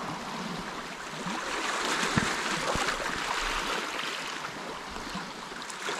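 Small sea waves washing and lapping among rocks and pebbles at the shoreline, a steady hiss of water that swells a little through the middle.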